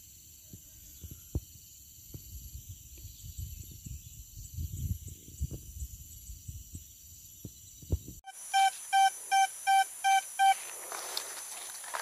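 Vista Gold metal detector beeping six times, short evenly spaced tones about two and a half a second, about eight seconds in: the detector is signalling a buried metal target. Before that, a steady high insect drone runs over low thuds and rustling.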